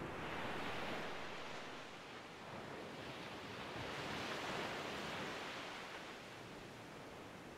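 Ocean surf breaking over a rocky shore: a faint, steady wash of noise that swells about a second in and again around four seconds in, then ebbs.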